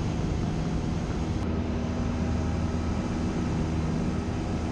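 Cessna 172's piston engine and propeller droning steadily in cruise, heard inside the cabin, with a faint click about a second and a half in.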